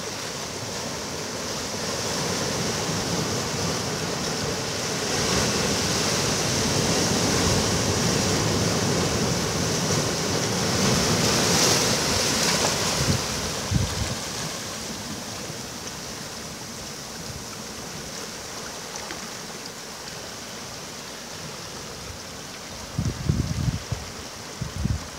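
Ocean waves breaking on a beach: one wave builds and crashes about halfway through, then the wash eases off. Near the end come a few low thumps, the sort that wind buffeting the microphone makes.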